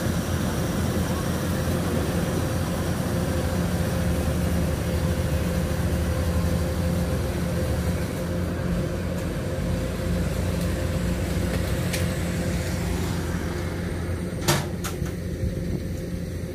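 Kubota DC-105X combine harvester's diesel engine running steadily while it cuts ripe rice, a constant hum. Two sharp clicks near the end.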